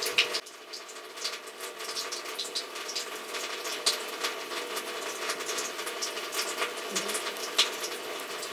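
Small dog chewing and tearing at a wad of cotton wool on dry grass: scattered small clicks and crackles of teeth and stalks, over a faint steady hum.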